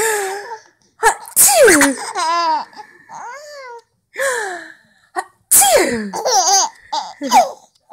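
A woman sneezes loudly ("Achoo!") twice. After each sneeze a three-month-old baby laughs in a run of short squeals that rise and fall in pitch.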